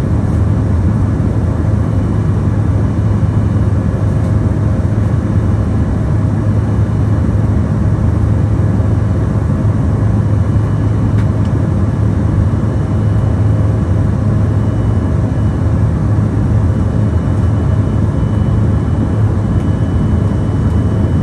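Steady, loud cabin noise inside an Embraer E170 in flight: a low drone from its twin GE CF34 turbofan engines and the air rushing past the fuselage, with a few faint steady tones above it.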